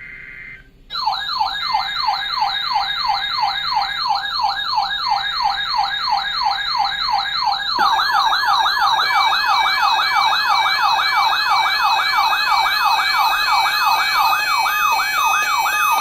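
Electronic siren yelping as an emergency alert tone: a fast wail sweeping up and down a few times a second, starting about a second in after a short steady tone cuts off. A second siren layer joins about eight seconds in, with a steady tone and an on-off beeping tone over it.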